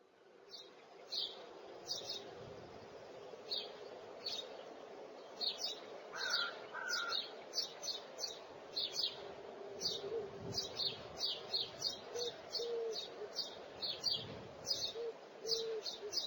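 Birds chirping: short high chirps repeating irregularly, about two or three a second, over a faint steady background hiss.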